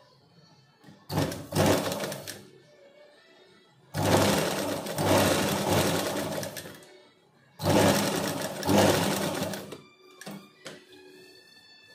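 Domestic sewing machine stitching a folded collar strip onto a kurti neckline, in three runs: a short one about a second in, a longer one of about three seconds, then one of about two seconds, with brief stops between. A couple of small clicks follow near the end.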